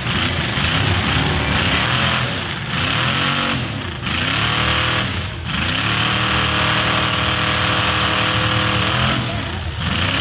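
Demolition derby cars' engines revving, several at once, their pitch rising and falling over and over with brief dips as throttles are let off.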